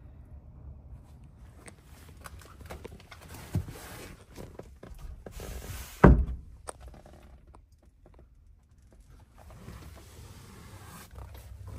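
Soft rustling and handling knocks, with a sharp knock about three and a half seconds in and a heavy, low thud about six seconds in, the loudest sound.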